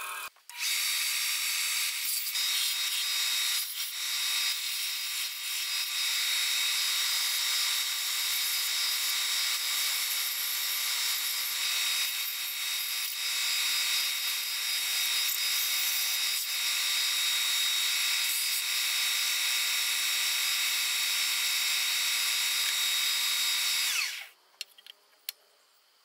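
Ryobi benchtop belt sander running steadily while dogwood bandsaw-box pieces are sanded against the belt. The motor shuts off about two seconds before the end, followed by a few light knocks.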